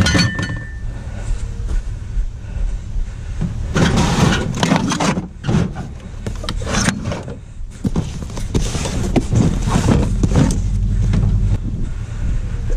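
Clattering and scraping as salvaged items (aluminium baseball bats, a power tool and a cardboard box) are loaded and shoved around in a pickup truck's bed, in irregular bursts over a steady low rumble.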